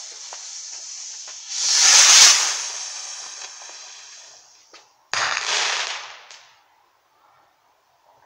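Firework rockets going off: a fizzing, crackling fuse, then a loud rushing whoosh about two seconds in that fades away. A second whoosh starts abruptly about five seconds in and dies out a second later, leaving near silence.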